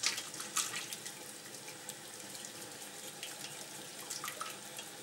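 Wire whisk stirring a thin roux of butter, flour and water in a stainless steel saucepan: a wet swishing with irregular clicks of the wires against the pot. The sauce is being whisked continuously so it turns smooth.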